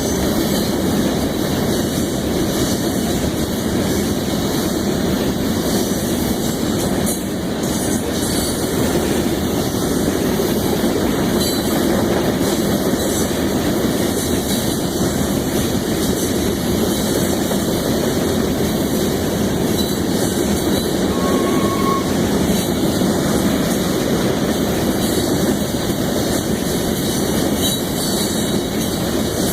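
Loaded grain train's covered hopper cars rolling past, a steady loud run of wheel-on-rail noise with some wheel squeal.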